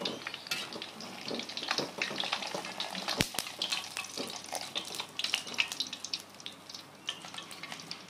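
Battered breadfruit pieces sizzling and crackling in hot oil in a metal wok as the browned pieces are lifted out. Metal utensils clink and scrape against the wok, with one sharp knock about three seconds in.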